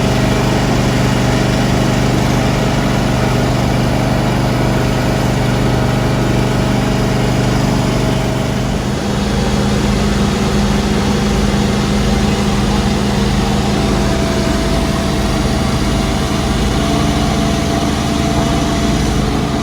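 Engine running steadily at a constant speed, with a slight shift in its tone about nine seconds in.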